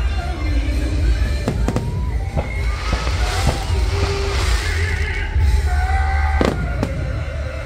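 Aerial fireworks bursting with sharp bangs over loud show music played through outdoor speakers. The loudest bang comes about six and a half seconds in, and a crackling hiss rises in the middle.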